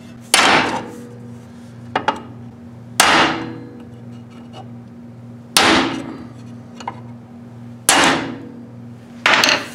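A hammer striking a punch to drive the worn front crankshaft seal out of a Ford 351M engine's timing cover. There are five sharp metallic blows, two to three seconds apart, each ringing briefly, with the last a quick double strike.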